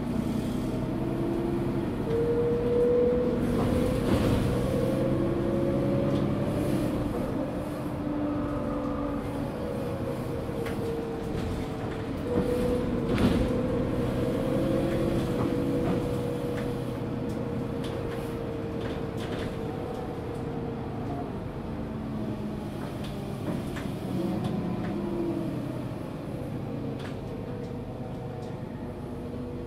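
Mercedes-Benz Citaro G articulated bus under way, with its OM457 six-cylinder diesel and ZF Ecomat six-speed automatic gearbox running steadily. The gearbox shifts up from fifth to sixth and back down to fifth, the engine note changing pitch with each shift. One sharp knock comes about halfway through.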